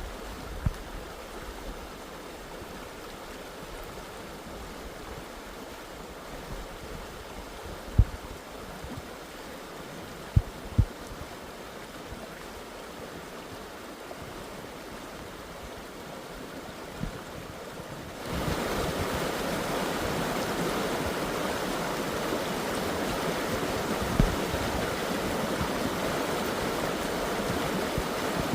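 Steady rushing of Tumalo Creek's water that suddenly gets louder about two-thirds of the way through. There are a few dull thumps in the first half.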